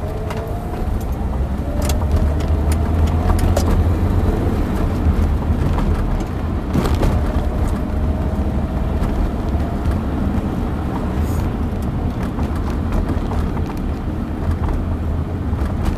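Car driving at city speed, heard from inside the cabin: a steady low rumble of engine and tyre noise, with a faint whine that rises in pitch twice and a few light clicks.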